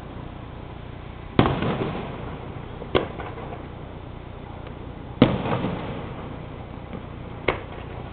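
Fireworks shells bursting, four bangs in all. The two louder bangs, about a second and a half in and about five seconds in, each trail off over about a second. The two shorter, sharper bangs come about three and seven and a half seconds in.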